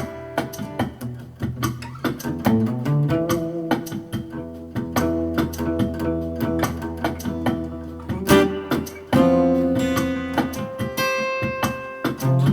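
Music led by plucked and strummed acoustic guitar, with a loud strummed chord about eight seconds in and another about nine seconds in.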